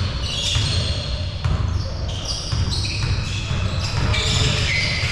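Basketball bouncing on a gym floor during play, repeated thuds echoing in a large hall.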